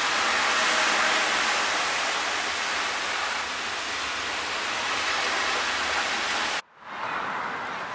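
Heavy rain pouring down in a steady hiss, with a car splashing through floodwater on the road near the start. The sound cuts off abruptly near the end.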